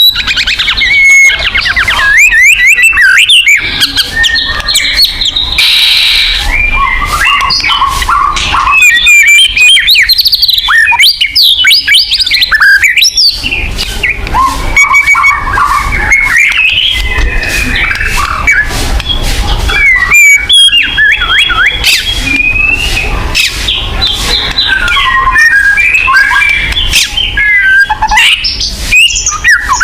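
White-rumped shama (murai batu) singing vigorously and without pause: a rapid, ever-changing run of whistled phrases, fast trills and harsh chattering notes.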